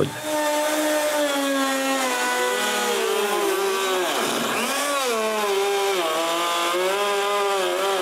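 Plunge router with a straight bit cutting a recess into a wooden workbench leg. Its motor whine sags and wavers in pitch as the bit bites into the wood, dipping deepest about halfway through.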